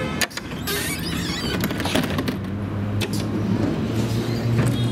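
Folding doors of a 1928-type Peter Witt tram closing: a sharp clack just after the start, a short hiss of air, then knocks as the panels shut. A low steady tram hum grows louder near the end.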